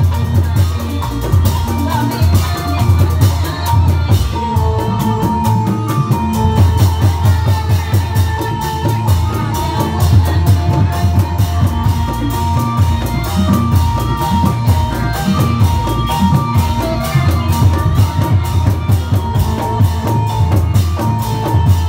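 Live Reog Indramayu dance accompaniment: electronic keyboards playing a melody of long held notes over fast, continuous drumming with a heavy low beat.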